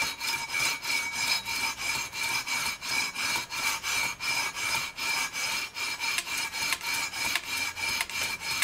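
Sandpaper on a long metal fret-leveling beam scraping back and forth across a guitar neck's EVO gold fret wire, in a steady rhythm of about three strokes a second. The frets are being leveled with only the tool's own weight as pressure.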